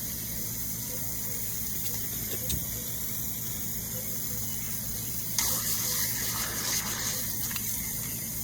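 Lawn sprinkler spraying water with a steady hiss, the spray growing louder and rougher for about two seconds from about five and a half seconds in.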